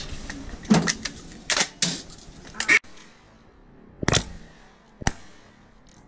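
Sharp clicks and knocks of gear being handled: a cluster in the first three seconds, then two more about a second apart near the end.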